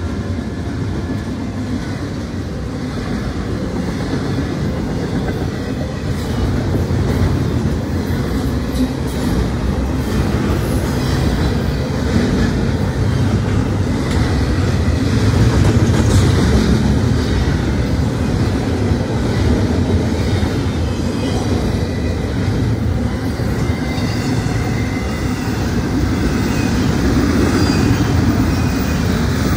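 Double-stack intermodal freight cars rolling past, a steady loud rumble of steel wheels on the rails.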